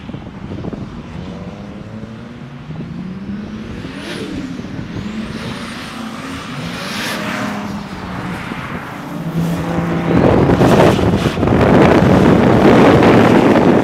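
Nissan S-body drift car's engine revving as it slides around the circuit, the pitch rising and falling with the throttle. About ten seconds in it gets much louder as the car passes close by.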